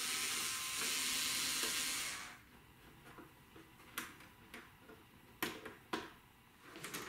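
A steady hiss for about two seconds, then a few short, sharp clicks of a screwdriver and small screws being taken out of a mini hi-fi system's casing.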